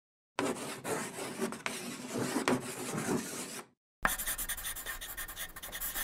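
Scratchy, scribbling sound effects from a logo intro, in two bursts with a short break a little before the four-second mark. The second burst is a rapid, even ticking scratch.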